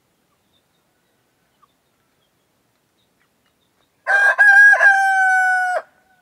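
A layer-breed cockerel crowing once, about four seconds in: a few short broken notes run into a long held note that falls slightly and then cuts off.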